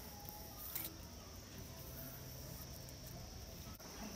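Faint rural outdoor background: a steady high hiss with a few faint chirps, and a light click about a second in.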